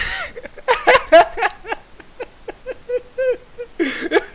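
A man laughing loudly in a run of short, breathy bursts with rising-and-falling pitch.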